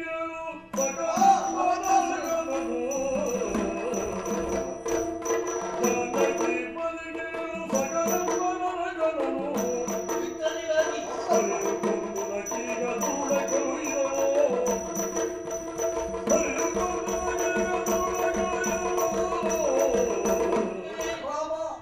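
Yakshagana puppet-theatre accompaniment music: drum strokes and percussion over a steady drone, with a melodic line wavering above it. It starts about a second in and stops near the end.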